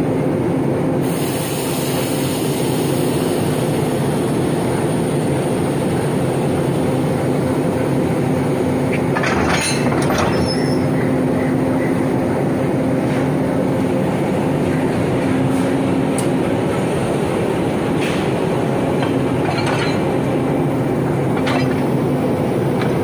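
Sri Lanka Railways Class M4 diesel locomotive's engine idling with a steady hum. A brief hiss comes about a second in, and a few sharp metallic knocks come during the coupling work.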